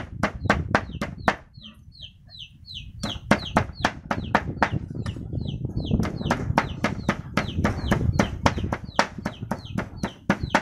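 Meat cleaver chopping raw pork into mince on a wooden chopping block, about five sharp knocks a second, with a short pause about one and a half seconds in. Chicks peeping in quick high falling chirps can be heard through the pause.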